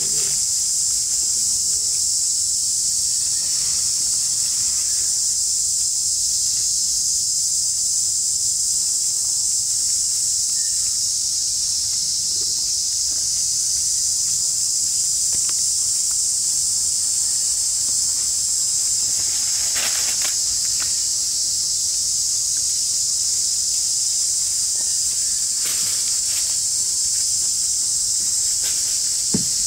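Steady, high-pitched drone of a chorus of insects, unbroken throughout, with a few brief rustles in dry leaves.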